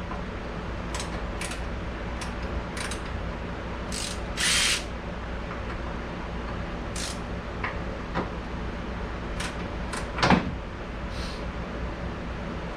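Steady hum of a shop fan with scattered clicks and knocks of tools and metal being handled, a short rushing noise about four and a half seconds in, and a louder knock about ten seconds in.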